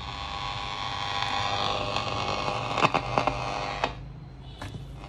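Sony 7R-79 transistor radio playing through its speaker: a steady buzzy hiss of static and interference with a few sharp crackles, cutting off suddenly about four seconds in, leaving a low hum.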